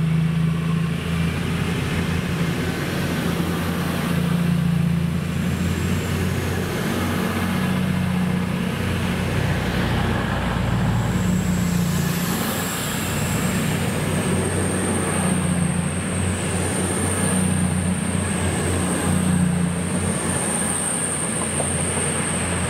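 East Midlands Railway Class 222 Meridian diesel trains running through a station, with a steady low diesel drone throughout. A thin, high, steady metallic squeal comes in a little past halfway and holds as a second unit approaches.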